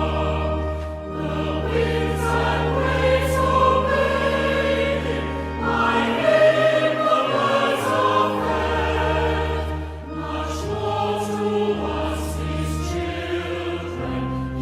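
Congregation singing a hymn in unison over church organ accompaniment, the organ's bass notes held for several seconds at a time while the melody moves above.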